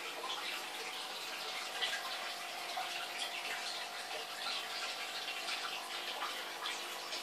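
Steady rushing and splashing of aquarium water, the flow from the tank's filter or pump churning the surface, with a faint steady hum underneath.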